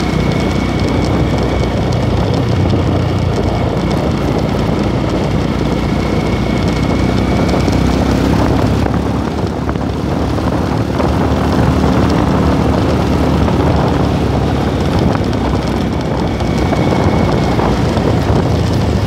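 Motorcycle engine running steadily with wind and road noise over the microphone while riding, a brief dip in level about halfway through.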